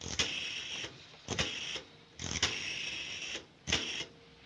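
Rotary telephone dial turned and allowed to run back four times, each return a quick run of clicks. The third run is the longest.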